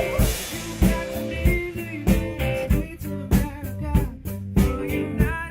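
Background music with drums keeping a steady beat.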